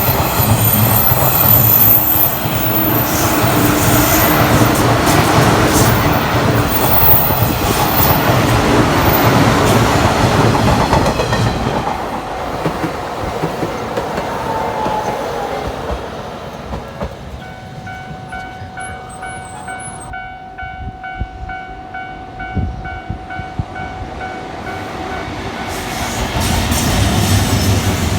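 A train running past over a level crossing, its loud wheel-on-rail noise fading away about halfway through. As it fades, the crossing's electronic warning bell is heard ringing in a steady repeating pattern. Near the end the train noise swells again.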